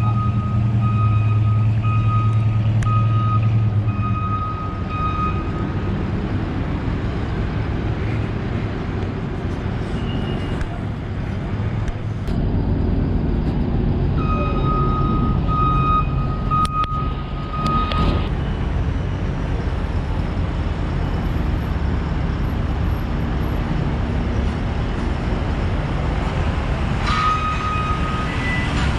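Reversing alarm on construction machinery, beeping in a steady on-off pattern in three spells: at the start, again about halfway through, and briefly near the end. A heavy vehicle's engine runs low underneath.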